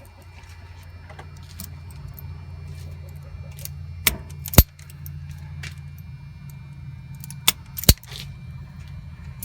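Sharp metallic clicks and clinks of hand tools working on wiring, two loud ones about four and a half seconds in and near eight seconds, with lighter ticks between, over a steady low hum.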